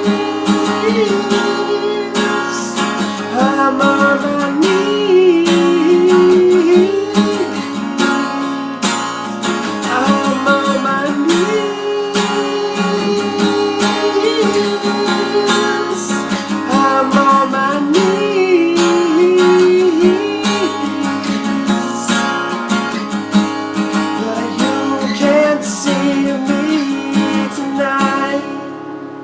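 Acoustic guitar strummed through the song's closing instrumental, with chords and melody notes ringing; it stops about 28 seconds in and dies away.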